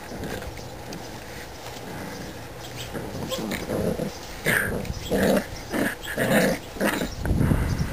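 Puppies growling in play: a run of short growls that starts about three seconds in and comes louder and closer together in the second half.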